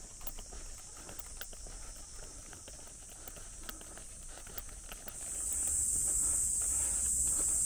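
Footsteps on a paved road under a steady high buzz of summer cicadas; the cicada chorus grows much louder about five seconds in.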